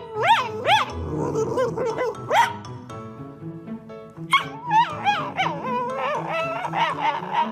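A Cavalier King Charles Spaniel gives short, whining yowls that slide up and down in pitch, a few near the start and a longer run in the second half, over background music.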